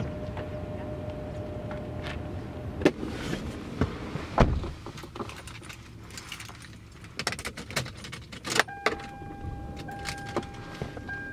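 Car door opened and shut with one heavy thud about four and a half seconds in, followed by keys jangling and clicks. Near the end a steady electronic chime starts and keeps going.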